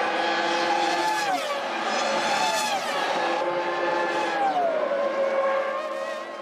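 Formula One V10 engines revving high, their pitch dropping in steps a few times.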